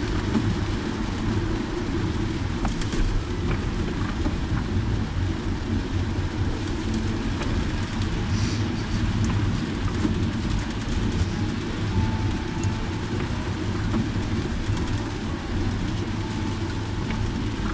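Steady low rumble of a car driving on a wet road, heard from inside the cabin, with the hiss of rain over it.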